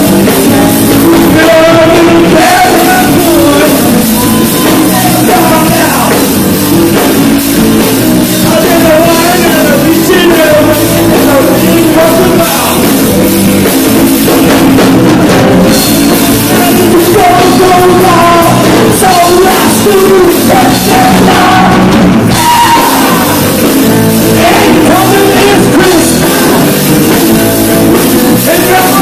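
Live rock band playing loudly: electric guitars, bass guitar and drum kit, with a man singing into a microphone over them.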